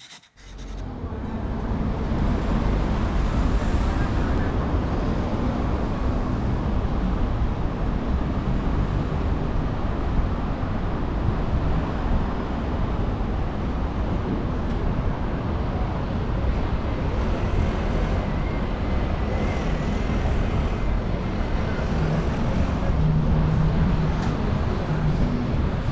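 Steady road traffic on a busy city street, with cars and buses running past; it fades in over the first couple of seconds.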